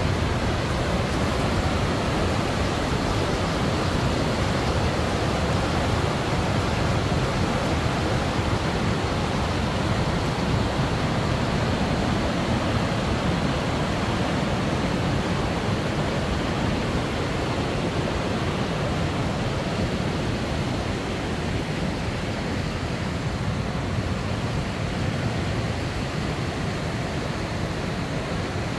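Steady rushing of the Youghiogheny River's falling, fast-flowing water, easing slightly near the end.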